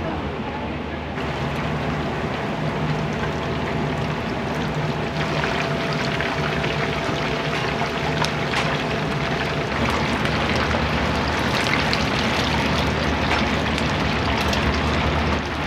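Karaage deep-frying: hot oil sizzling and crackling, getting louder about a second in and again around five seconds, over a low steady hum.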